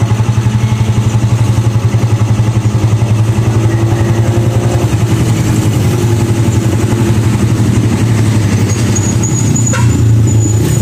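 Vehicle engine idling close by with a steady, fast even pulse. A thin high tone joins it near the end.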